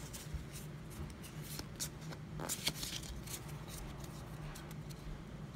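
A stack of Pokémon trading cards being handled and slid apart between the fingers: a run of quick, light papery flicks and rustles of card stock.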